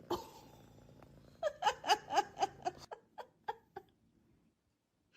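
A person laughing: a quick run of about eight high-pitched "ha" pulses that starts about a second and a half in and fades away over a couple of seconds.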